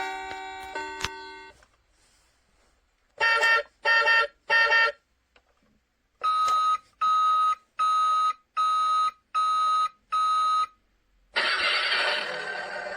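Electronic sound effects from a Cemirk toy bus's small speaker: a quick run of tones, then three beeps, a pause, and six evenly spaced beeps. A dense, noisy electronic sound starts near the end.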